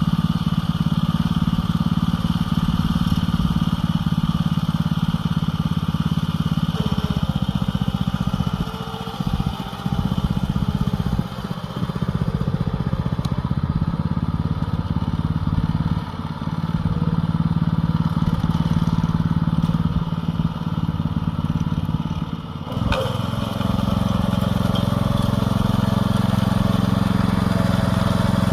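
Small farm-machine engine running steadily in the field, easing off briefly several times as the load or throttle changes, with one sharp knock a little over three-quarters of the way through.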